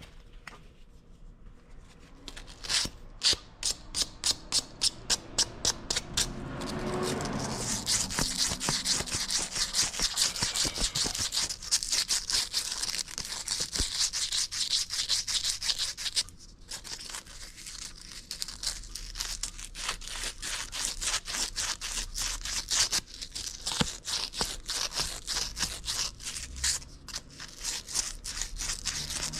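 Furnace flame sensor rod being scrubbed with an abrasive flame sensor cleaner tool to clean it back to bare metal. The rubbing strokes come about two or three a second at first, then turn faster and continuous, with a brief pause partway through.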